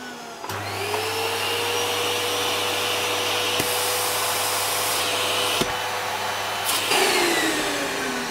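Vacuum cleaner drawing through the grinder's new dust-collection nozzle, run as a suction test. It is switched on about half a second in, its whine rising and then running steadily. The airflow turns hissier for about two seconds in the middle, with a click at each end. It is switched off near the end and winds down with a falling whine.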